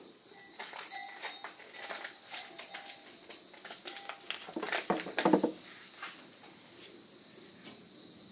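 Crickets chirring steadily, with scattered light clicks and knocks and a short, louder sound about five seconds in.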